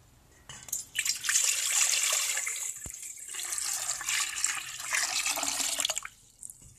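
Water pouring in a stream into a stainless steel pot, splashing as it fills. The pour starts about half a second in and stops about six seconds in.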